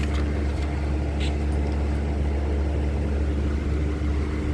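A steady low machine hum, with a few faint clicks in the first second and a half.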